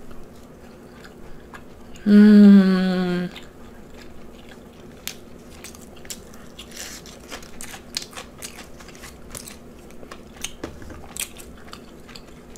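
Close-miked eating: chewing and biting with many small crunchy clicks. About two seconds in, a short voiced sound from the eater's throat, about a second long and steady in pitch, stands out as the loudest thing.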